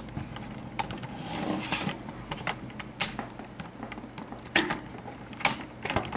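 Handling noise: scattered clicks and taps, with a brief rustle a little over a second in, over a steady low hum.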